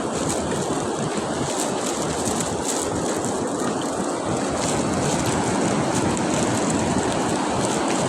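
Steady wash of sea surf on a beach, with wind noise on the microphone.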